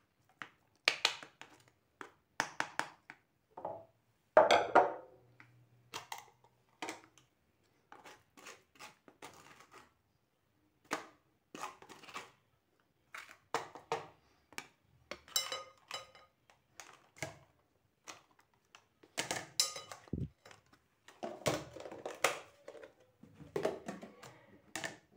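A spoon scraping and pressing wet lemon pulp through a stainless-steel mesh sieve, with irregular short scrapes and knocks as the sieve is handled and the pulp is scraped out into a plastic container.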